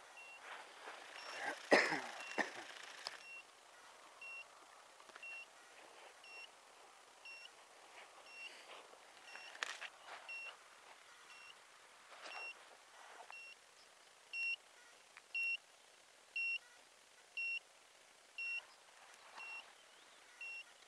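Electronic beeper sounding short, high beeps about once a second, several of them louder in the second half. A loud knock with rustling about two seconds in, and a few fainter clicks.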